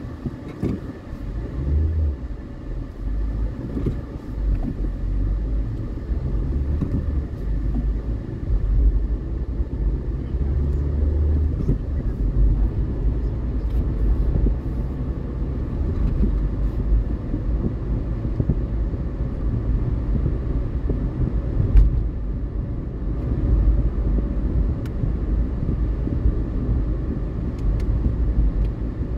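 Car engine and tyre noise heard from inside the cabin, a steady low rumble. It grows louder in the first couple of seconds as the car pulls away from a stop, then holds even while it drives along.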